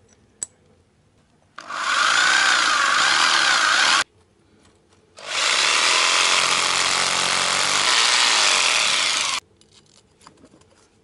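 Electric drill boring into an old concrete step, in two runs of a few seconds each with a short pause between.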